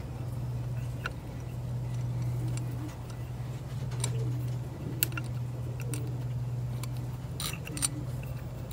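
Scattered small metallic clicks and ticks as the high-speed needle valve is unscrewed by hand from a 1950 Johnson TN-26 outboard carburetor, over a steady low hum.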